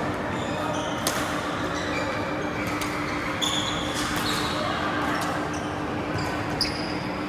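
Badminton in an indoor hall: a few sharp racket hits on the shuttlecock and short, high shoe squeaks on the court floor, over steady hall noise with a faint low hum.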